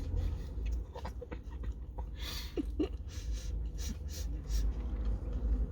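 A person chewing a mouthful of burger, with soft wet clicks and breaths, over a steady low rumble. Two brief squeaks come near the middle.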